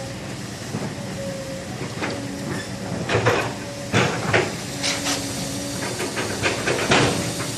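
Construction work: irregular sharp knocks and clanks, the loudest about three, four, five and seven seconds in, over a steady background noise with a faint hum.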